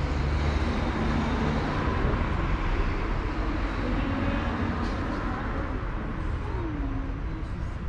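Steady city street traffic noise: a continuous rumble of passing and running vehicles, with a faint short falling tone about six and a half seconds in.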